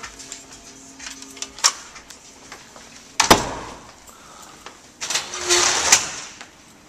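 Small-room handling noise: a few light clicks, then a sharp knock about three seconds in. A second-long scraping rattle follows near the end as a tall metal cabinet door is opened.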